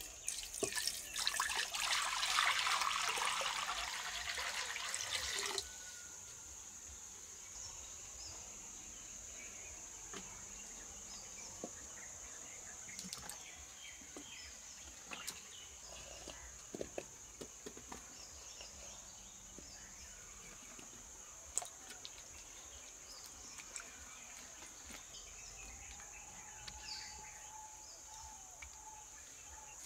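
Water poured from a clay pot into a terracotta bowl, a rushing splash lasting about five seconds. It is followed by scattered small splashes and knocks as onions go into the water and are handled. A steady high-pitched insect drone runs underneath.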